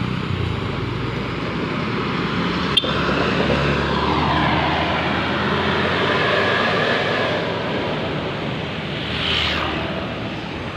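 Large intercity bus passing close by on the road: engine and tyre noise swell as it goes past, then fade, with a sharp click about three seconds in.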